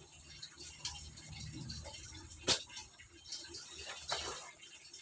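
Handling noises from unpacking: scattered light clicks and rustles of packaging and a bag being handled, with one sharp click about two and a half seconds in.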